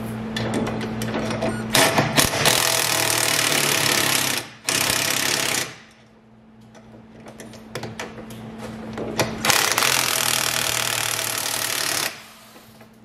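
Cordless impact tool hammering bolts home under a vehicle frame: one long run of impacts starting about two seconds in and lasting some four seconds, with a brief break, then a second run of over two seconds near the end.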